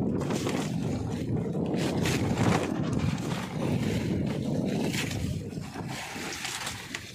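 Wind rumbling on the microphone over the noise of the sea and boat, with scattered knocks and scrapes as fish are handled in the boat's wooden hold.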